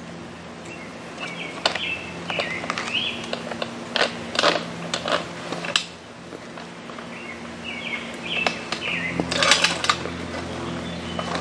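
Scattered clicks and knocks of a Lone Wolf hand climber's aluminum seat section being strapped onto a small tree trunk, with a cluster of knocks near the end. Birds chirp a few times over a faint steady low hum.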